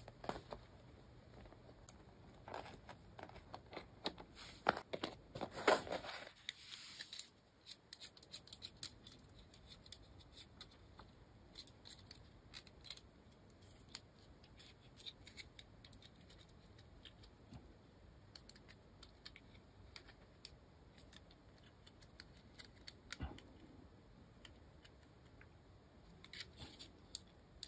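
Faint clicking and scraping from the screws being tightened on a stacked acrylic Raspberry Pi case while it is handled and turned over. The clicks are busiest over the first six seconds, then come only now and then.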